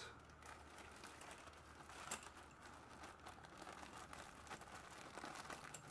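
Faint crinkling of a small plastic parts bag being handled, with scattered light clicks and one sharper click about two seconds in.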